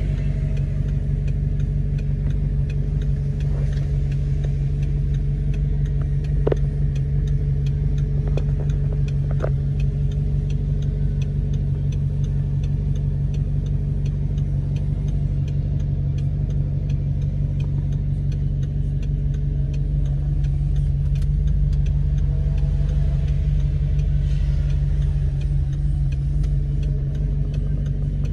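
Audi R8's 4.2-litre V8 idling steadily, low and even, with light ticking over it.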